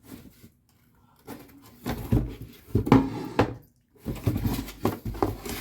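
A kettle being handled, with its lid and body giving off irregular knocks and clatter after a quiet first second.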